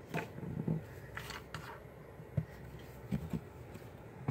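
Quiet handling noises: soft rubs and scattered light taps and clicks as Play-Doh pieces and the handheld camera are moved about on a tabletop, with one sharper knock about halfway through.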